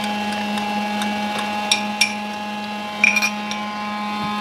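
A spoon clinking against a small glass jar as ginger-garlic paste is scooped out into the wok: two clinks about two seconds in and a quick run of three just after three seconds, over a steady background hum.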